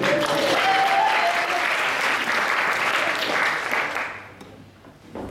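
Audience clapping and applauding, with a single voice calling out over it in the first couple of seconds. The applause dies away about four seconds in.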